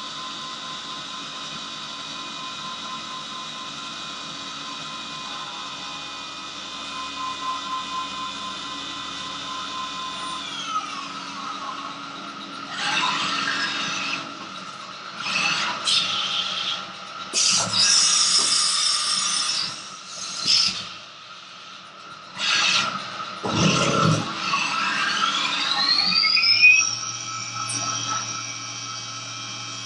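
Syil X7 CNC milling machine's spindle running with a steady whine while cutting the part under flood coolant. About ten seconds in the spindle winds down, and a run of loud, irregular hissing and clattering bursts follows. Near the end the spindle winds back up to a new steady pitch.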